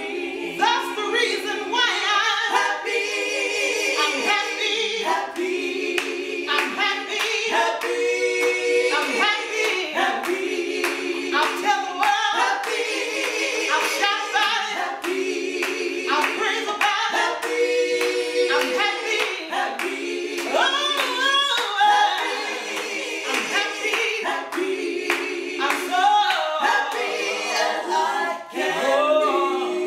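Four women singing gospel a cappella in close harmony, with hand claps keeping time through the song.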